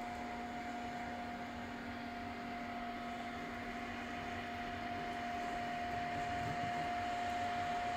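Creality Ender 3 V2 3D printers running, with their cooling fans whirring and a constant whine over a steady hiss. The sound gets a little louder about five seconds in.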